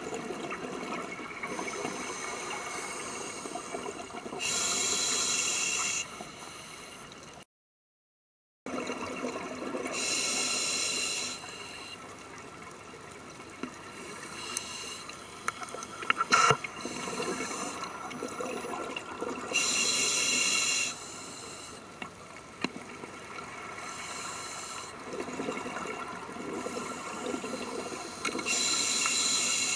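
Scuba diver breathing through a regulator underwater: a soft hiss between breaths, then a loud bubbling rush of exhaled air four times, several seconds apart. The sound cuts out briefly a little after seven seconds in, and a few sharp clicks come about halfway through.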